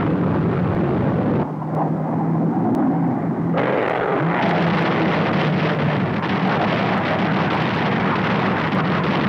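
Jet aircraft engine noise in flight: a steady rushing hiss over a low steady drone. The sound changes abruptly about one and a half seconds in and again about three and a half seconds in, then carries on as a fuller, brighter rush.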